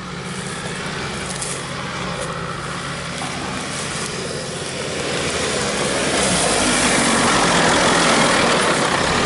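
Nissan Patrol 4x4's engine running as it crawls off-road toward the microphone, growing steadily louder from about halfway through as it comes close and climbs a bank.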